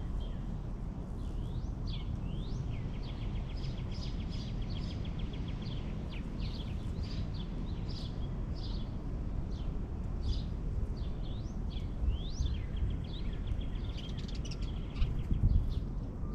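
Several small songbirds chirping and calling, with quick rising whistled notes and two rapid trills, over a steady low rumble.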